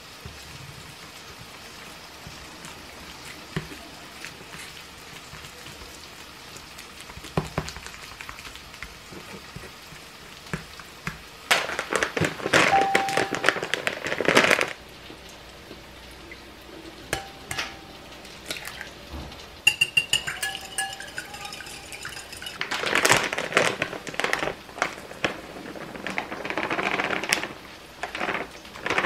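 Kitchen food-prep handling: light taps of a knife on a wooden cutting board, then a few seconds of loud crinkling from a plastic pancake-mix bag. A glass bowl clinks a few times, and near the end there is a long rustle of dry pancake mix being poured into the glass bowl.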